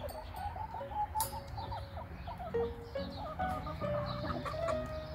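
Hen clucking softly while pecking at greens through a wire grid, with scattered sharp taps of her beak. Background music comes in about halfway through.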